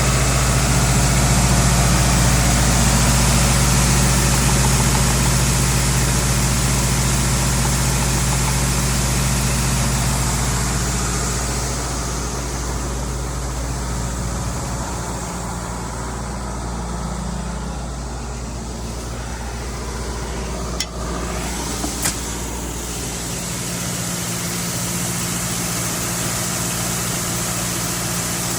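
Farm tractor engine running steadily, easing off a little past the middle, with two sharp clicks about a second apart later on.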